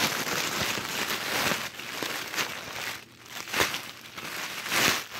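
Crinkly packaging being handled and pulled open by hand: a continuous crinkling with a few sharper crackles, loudest at the start and again near the end.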